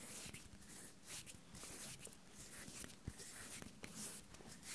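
Bare hands rubbing and fingers sliding against each other close to the microphone: a string of soft, dry swishes of skin on skin, several strokes in a few seconds.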